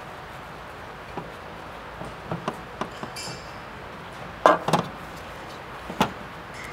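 Aluminium oil filter housing and oil cooler handled on a workbench: scattered light clicks and knocks of metal parts, the loudest a pair about four and a half seconds in and another at six seconds.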